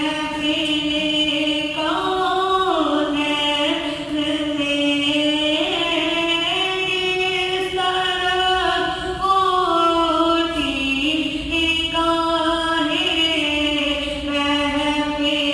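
A boy's solo voice reciting a naat, an Urdu devotional poem sung without accompaniment, in long held melodic lines that rise and fall slowly in pitch, one phrase running into the next.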